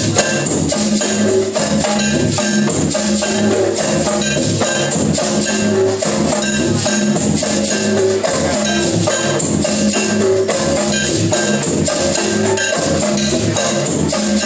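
Live percussion ensemble playing an improvised groove: many quick drum and wood-block hits with shaker over a repeating low-pitched pattern, steady and loud throughout.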